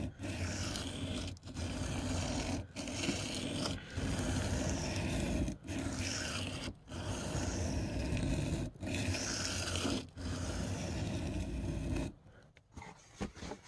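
A steel knife blade, a Spyderco PM2 Wharncliffe, scraping back and forth across a wet sharpening stone in long strokes of one to two seconds each with brief breaks between them, to put a new edge on it. The strokes stop about twelve seconds in.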